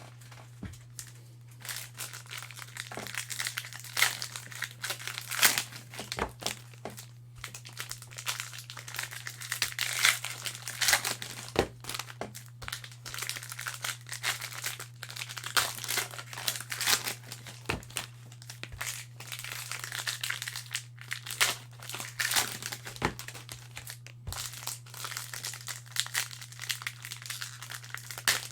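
Plastic wrappers of trading-card fat packs crinkling as they are handled and torn open, with many sharp irregular crackles over a steady low hum.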